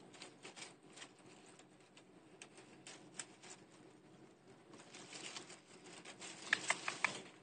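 Faint rustling and scratching of leaves and bedding as a baby squirrel wrestles with a person's hand, with a quick run of louder clicks near the end.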